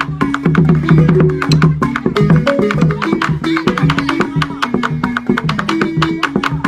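Balafon, a wooden xylophone with gourd resonators, played fast with two mallets over a laced double-headed barrel drum beaten with sticks: a steady stream of quick wooden strikes with short ringing notes, in a running rhythm.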